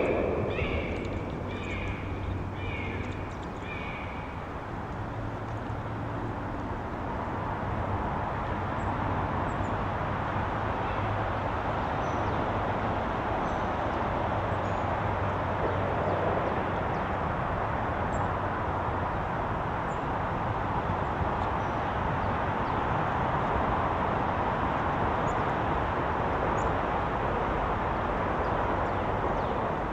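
A bird at a backyard feeder gives a series of about seven short calls, evenly spaced a little over half a second apart, in the first four or five seconds. A steady wash of outdoor background noise follows, growing a little louder about seven seconds in.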